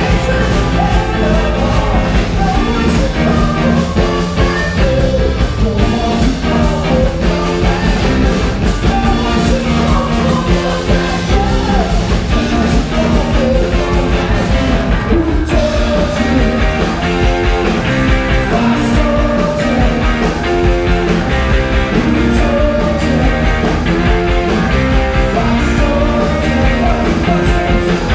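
Rock band playing loud live, with singing, recorded from the crowd on a camera's built-in microphone.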